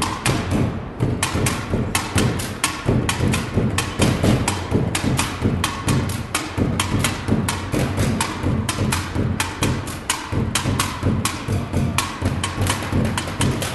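Fast, steady rhythmic drumming beaten on upturned plastic wheelie bins and buckets, with hollow knocks and thuds several times a second.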